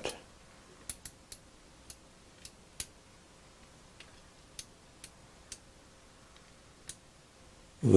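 Tektronix 211 oscilloscope's rotary range switch being turned step by step: about a dozen faint, irregularly spaced detent clicks.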